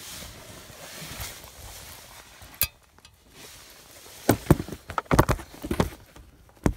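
Handling noise around a car's engine bay: low rustling, a single sharp click about two and a half seconds in, then a quick run of knocks and clatter in the last couple of seconds.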